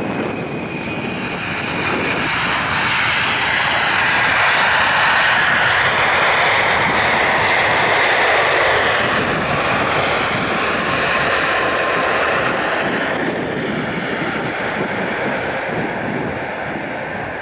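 Boeing 747-400 freighter's four jet engines on its landing roll after touchdown: loud rushing jet noise with a thin falling whine at first, swelling as the aircraft passes about four seconds in and easing off a little in the last few seconds.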